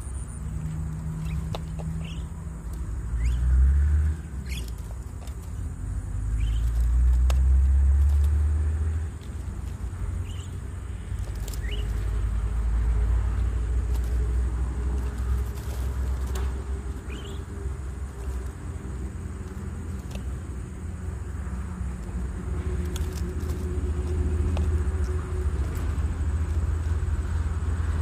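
A low rumble that swells briefly about three seconds in and again for a few seconds soon after, with scattered short bird chirps over it.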